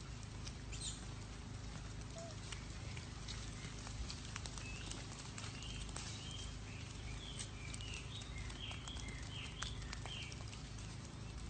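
Outdoor ambience with animal sounds: scattered knocks over a steady low rumble, and a run of short, quick chirps through the middle.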